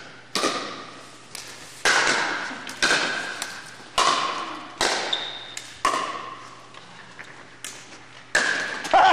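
Pickleball rally: paddles striking the hard plastic ball, about nine sharp pocks, roughly one a second, each ringing on in the echo of a large gym hall.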